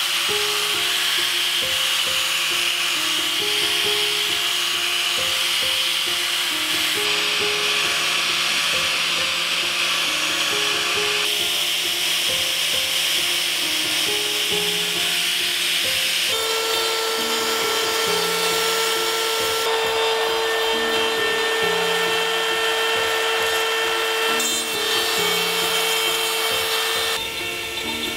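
Angle grinder with a sanding disc running against wood, a steady high-pitched grinding whine, during machine sanding of a wooden sculpture before hand finishing. Background music with slow, held notes plays over it.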